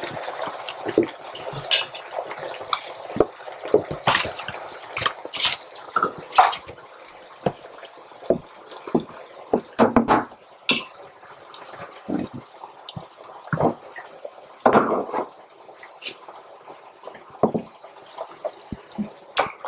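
Irregular clinks and knocks of a spoon against a stainless saucepan and a cooker pot, with wet sounds of tomato sauce being stirred and spooned.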